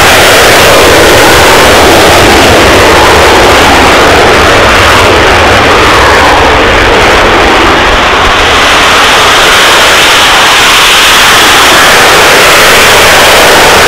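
F/A-18 Hornet's twin F404 jet engines in full afterburner on the take-off roll: a very loud, steady jet roar. The hiss in the roar drops away for a few seconds in the middle and then builds again toward the end.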